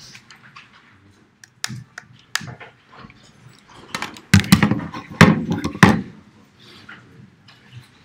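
Scattered knocks and thumps in a room, with a louder cluster of thuds and rumbling about four to six seconds in.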